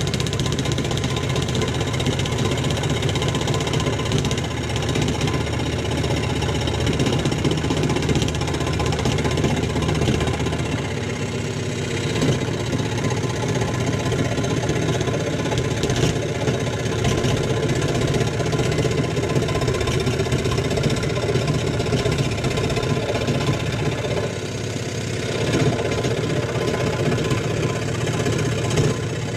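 Benchtop electric saw running steadily as it cuts a walnut board.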